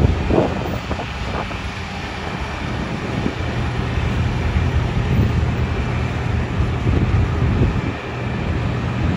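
Diesel engine of an EMD GP38-2 road-switcher locomotive running with a steady low drone as it rolls slowly past at the head of a passenger train. Wind buffets the microphone a few times.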